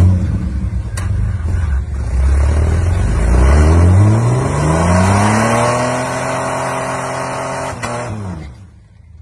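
Jeep Wrangler engine under load as it crawls over the pipes: it revs up, holds the higher revs for a few seconds, then drops back and fades near the end. A sharp knock about a second in and another near the end.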